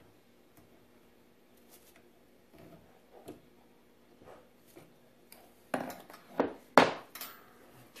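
Handling of a dishwasher fill hose and its hose clamps: faint scattered clicks and rustles, then several sharp clacks and knocks in quick succession near the end.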